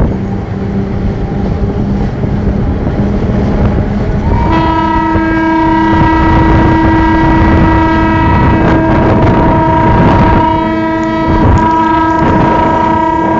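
Locomotive running, heard from on board, then about four seconds in its horn sounds one long, loud blast on a single note, lasting about nine seconds with a brief break near the end.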